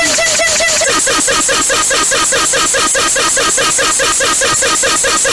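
Emergency-alert-style alarm tone, a loud warble pulsing about five times a second, which shifts to a lower, rougher pulse pattern about a second in.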